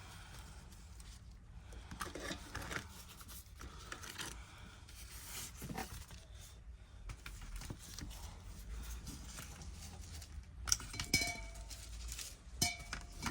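Small handling sounds of tools and tablet parts on a workbench: light scrapes and rustles, with a few sharper clicks and taps near the end.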